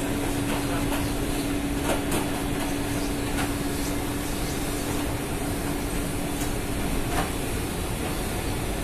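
Steady, loud machinery noise aboard a ship, with a steady hum that fades away about seven seconds in and a few light knocks.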